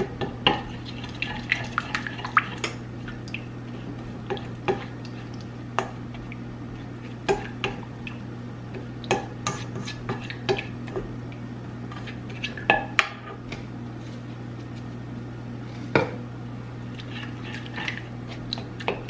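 Silicone spatula stirring melted butter and grated parmesan in a stainless steel skillet, with irregular scrapes and clicks against the pan and one sharper knock about 16 seconds in. A steady low hum runs underneath.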